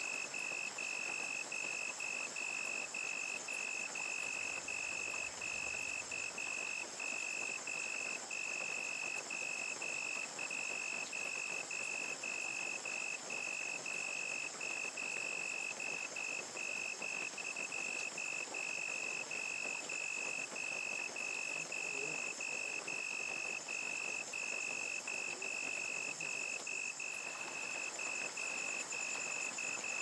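Crickets chirping in a steady, high-pitched pulsing trill over the even hiss of falling rain.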